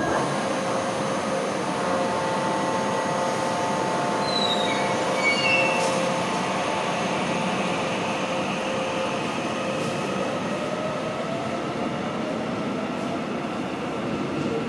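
Korail electric subway train pulling out of the station: steady traction-motor whine over the rumble of the wheels, with short high wheel squeals around 4 to 6 seconds in. Later a whine rises in pitch as the train gathers speed.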